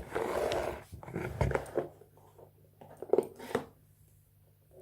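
Cardboard packaging being opened and handled: a scraping rush as the lid slides off, then a few light clicks and taps.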